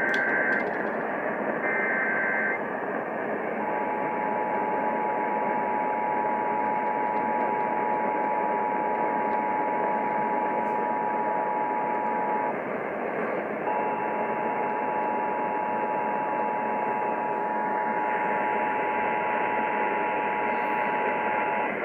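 Emergency Alert System tones heard over radio with steady static hiss: the last two bursts of the digital SAME header, each under a second, in the first two and a half seconds, then the two-tone attention signal sounding for about nine seconds, breaking off for a second, and sounding again for about eight seconds. It is the alert sequence of a Required Monthly Test.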